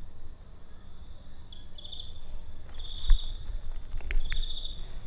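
Crickets chirping: a steady high trill that swells into three pulsing bursts of about half a second each. Two sharp knocks sound about three and four seconds in.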